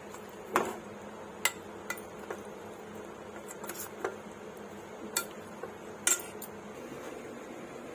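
Kitchen pots, pans and utensils clinking and knocking as cookware is handled: about half a dozen sharp clinks spread over several seconds, the loudest about half a second in and about six seconds in, over a faint steady low hum.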